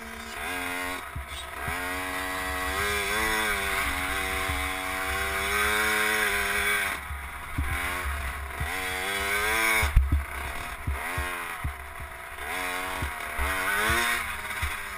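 KTM SX50 two-stroke engine being ridden on a motocross track, revving up and dropping back again and again, every second or two. A low rumble and scattered thumps run underneath, with a sharp thump about ten seconds in.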